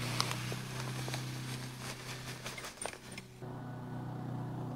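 Scotts DiseaseEx lawn fungicide granules poured from the bag into a bucket: a steady hiss of falling granules that stops about three and a half seconds in, with a few light knocks.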